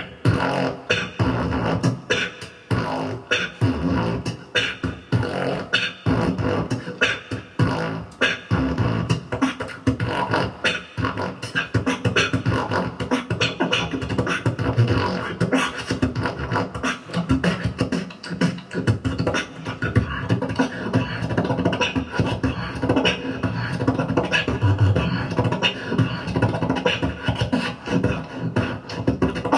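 Solo beatboxing into a cupped handheld microphone, amplified: a continuous fast rhythm of drum sounds made with the mouth, sharp clicks and snare hits over deep bass, with no pause.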